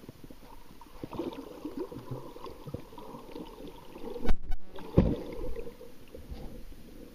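Muffled underwater sound of water moving around a submerged camera: irregular sloshing and gurgling. Two loud low thumps come a little past the middle, about a second apart.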